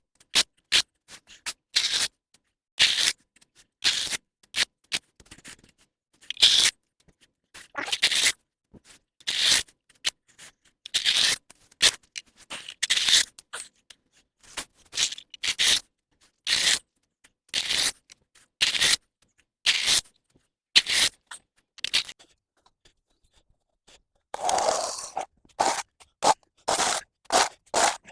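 A hand tool scraping mud and leaf debris off a paved path in repeated short strokes, roughly one a second, with a longer scrape near the end.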